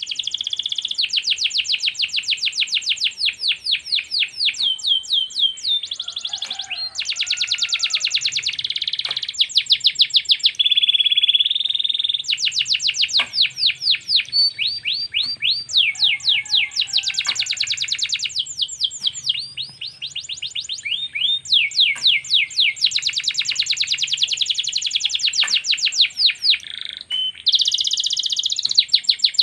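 Domestic canary song: long, rapid trills and rolls, each phrase a fast run of identical notes lasting a few seconds, with short pauses and changes of note between phrases.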